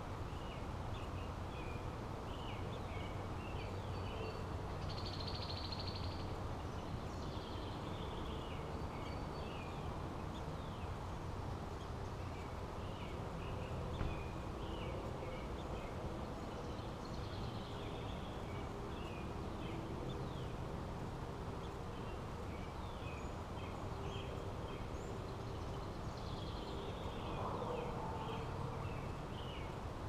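Small birds chirping: many short, repeated high chirps and a few higher calls throughout, over a steady low background rumble of outdoor noise. One brief tap sounds about halfway through.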